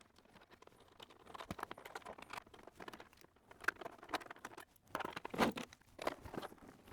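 Screws being backed out of a monitor's plastic housing with a hand screwdriver: faint, irregular scratching clicks and small rattles, loudest about five seconds in.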